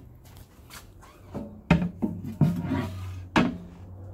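A countertop-matching sink cover board being lifted off a stainless steel kitchen sink and handled, giving several knocks and scrapes, the loudest about a second and a half, two and a half and three and a half seconds in.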